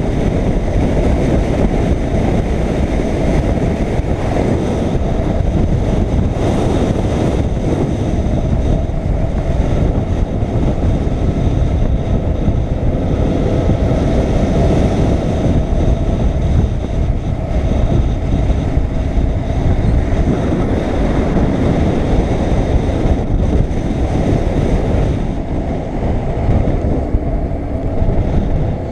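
Wind rushing over the microphone of a camera on a moving BMW R850R motorcycle, with the bike's boxer-twin engine running underneath, its pitch shifting a little through the bends.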